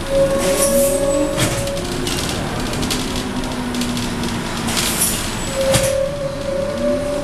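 Scania K230UB city bus heard from inside while driving: its Scania DC9 five-cylinder diesel and ZF Ecomat automatic gearbox running, with a held whine and tones rising in pitch twice as it pulls. A few sharp rattles from the bus body cut in.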